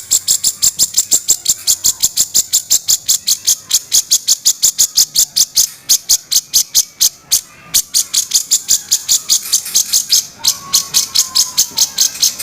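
A cucak jenggot (grey-cheeked bulbul) gives a rapid, harsh rasping 'kasaran' call of even, high-pitched pulses, about five a second. It breaks off briefly near the middle and again about ten seconds in.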